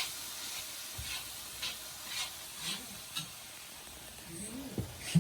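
Food sizzling in a frying pan while a spoon or spatula stirs it, with a short scrape about twice a second.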